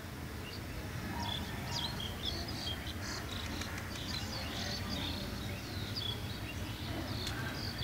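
Small birds chirping: many short, high chirps and whistles over a steady low background rumble.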